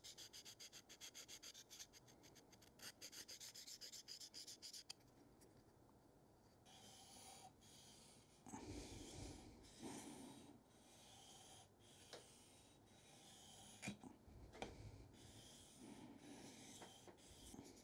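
Faint scraping as the inside curve of a carving gouge is rubbed against the edge of a 1200-grit waterstone to remove the burr. The strokes are quick and even at first, pause about five seconds in, then go on slower and uneven, with a couple of light clicks.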